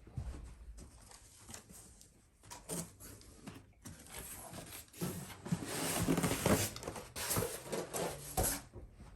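A box and its packaging being opened and handled: irregular rustling, scraping and crinkling, sparse at first and busiest over the second half.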